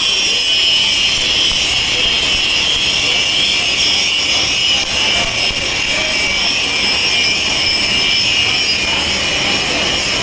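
Welding robot's arc welding, a steady loud hiss.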